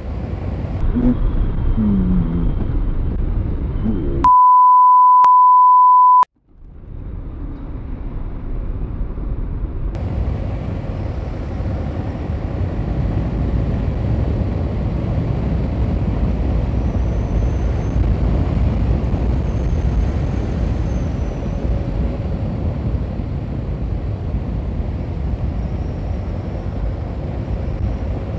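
Motorcycle riding noise: a Suzuki Gixxer SF's single-cylinder engine running at road speed under heavy wind rush on the microphone. About four seconds in, a steady beep tone cuts in for about two seconds, then the riding noise resumes.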